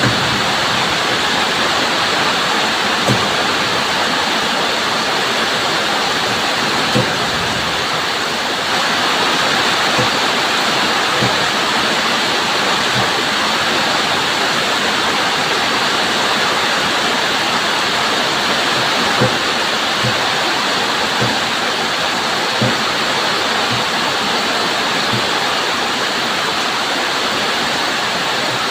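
Steady heavy rainfall, a dense even hiss, with a soft low knock every second or few as drops hit something close by.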